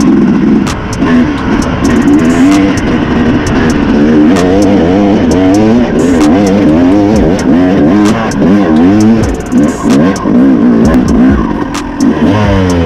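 Yamaha YZ250 two-stroke single-cylinder dirt bike engine under way, its revs rising and falling as the throttle is worked, with sharp clicks and clatter mixed in. Near the end the revs fall away to a lower, steadier note.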